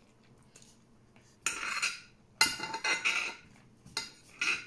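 Tableware scraping and clinking on a plate during a meal, in a few short bursts, the loudest about two and a half seconds in.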